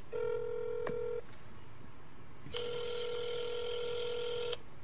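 Telephone ringing tone heard through a smartphone's speaker while a call connects: a steady buzzing tone sounding twice, once for about a second and then for about two seconds, with a short tap on the screen about a second in.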